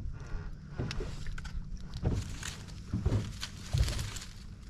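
Irregular low thumps and knocks in a small boat on open water, with a rushing hiss that swells in the second half.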